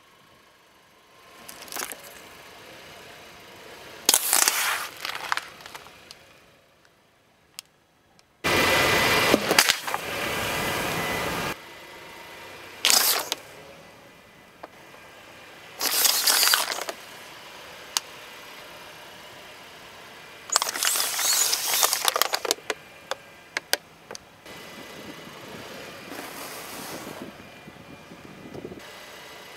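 A car tyre rolling over and crushing plastic drink bottles and crunchy cookies, a series of separate crackling crushes a few seconds apart. One louder rush of noise lasts about three seconds, starting about eight seconds in.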